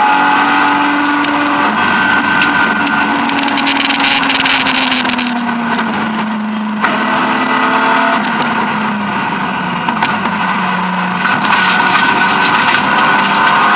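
BMW E36 M3 rally car's straight-six engine, heard from inside the cabin while driving a stage. The engine note falls for several seconds, dips in level about halfway, then rises again. Two stretches of sharp crackling and clicking sit over the engine.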